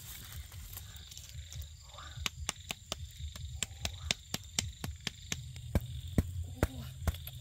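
Burning embers in a fire pit crackling, with sharp irregular pops, several a second, that start about two seconds in and go on, over a steady low hum.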